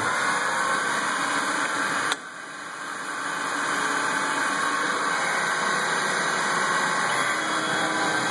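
A CNC-converted Grizzly G4002 metal lathe running an automatic cycle, its spindle and drives giving a steady mechanical hum mixed with the hiss of coolant spray. About two seconds in, the sound drops sharply, then builds back up over the next two seconds.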